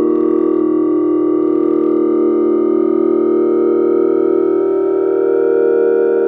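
Electronic synthesizer drone from the 4ormulator v1: a dense cluster of steady synthetic tones held at an even level, with one upper tone gliding slowly upward.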